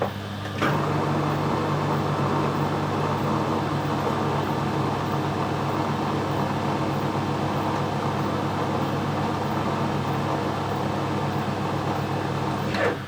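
Metal lathe starting up about half a second in and running steadily with a constant hum and whir, then stopping near the end.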